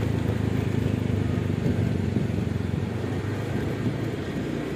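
Motor vehicle engine running steadily, a low even rumble with traffic noise around it; no horn sounds.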